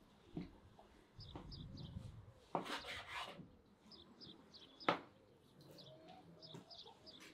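A knife cutting raw meat on a wooden cutting board, with three sharp knocks of the blade on the board, the loudest about five seconds in. Small birds chirp in the background.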